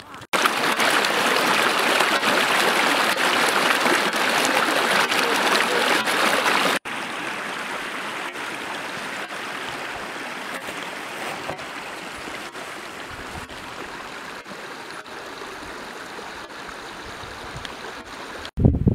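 Running water of a fell beck, a steady rush that drops suddenly to a quieter level about seven seconds in.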